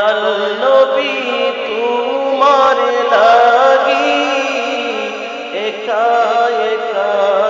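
A man singing a Bengali Islamic devotional song (gojol), holding long notes that waver and bend in pitch.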